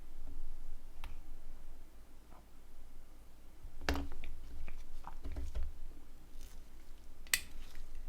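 Small plastic phone parts being handled and fitted during reassembly: a few scattered light clicks and taps, the sharpest one near the end.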